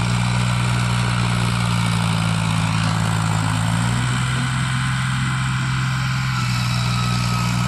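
John Deere 5310 tractor's three-cylinder diesel engine running steadily under load as it pulls two trailers loaded with sugarcane; its note shifts slightly about halfway through.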